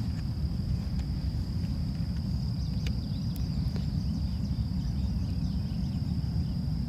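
Low, steady rumble of a distant diesel-hauled freight train approaching across open farmland, with a thin, continuous high-pitched insect buzz over it.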